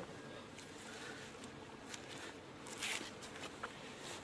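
Faint rustling and handling noises against a quiet steady hiss, with one slightly louder rustle about three seconds in.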